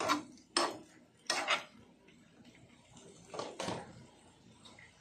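A small metal spoon scraping and clinking against a nonstick frying pan while shell-on shrimp are stirred. There are a few short strokes in the first two seconds and another pair about three and a half seconds in.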